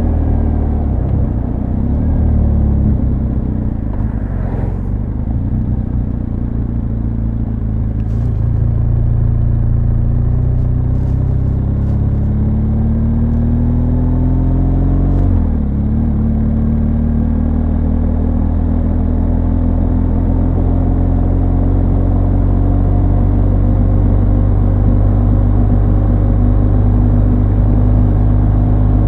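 Motorcycle engine and exhaust under way: the engine note falls over the first few seconds, then rises steadily while accelerating. About halfway through it drops sharply at a gear change and then holds steady at a cruise.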